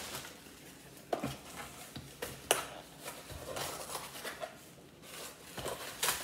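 Hands handling packaging around the grill's power cord: light rustling with a few sharp clicks and taps, the sharpest about two and a half seconds in and again near the end.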